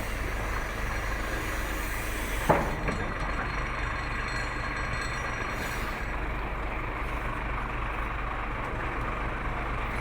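Hitachi Zaxis 350 excavator's diesel engine running steadily at low speed; its revs stay down because the throttle motor is not responding. A single sharp knock sounds about two and a half seconds in.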